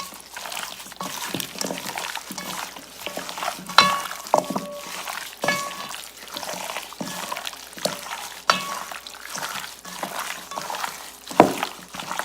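Raw chicken thighs coated in olive oil and spices being mixed in a bowl: irregular wet squelches and knocks, with a few short ringing clinks.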